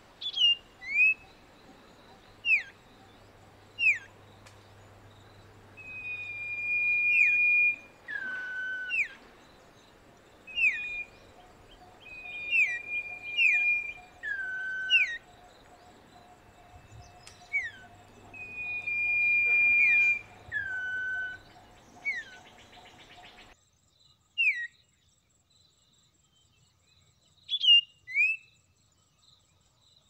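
Common iora (Aegithina tiphia) whistling over and over: long level whistles that drop to a lower note, mixed with short down-slurred notes. After about two thirds of the way through, only a few short notes follow.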